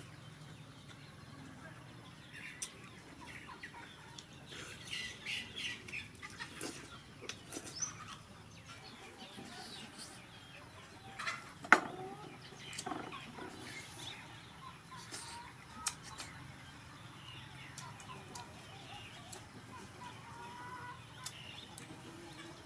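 Chickens clucking, with close chewing and lip-smacking sounds from eating octopus by hand; one sharp click a little past halfway is the loudest sound.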